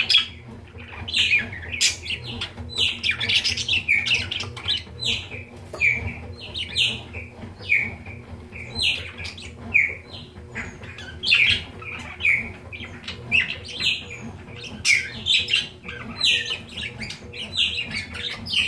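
Budgerigars chattering in a cage: a continuous stream of short chirps and squawks, several a second, from courting pairs.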